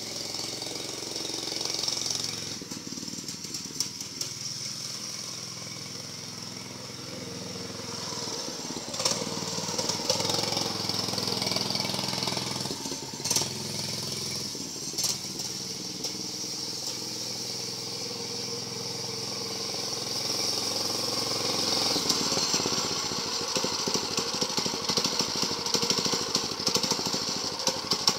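Homemade mini bike's small engine running in the distance, its pitch rising and falling as it is ridden, growing louder over the last several seconds as it comes close.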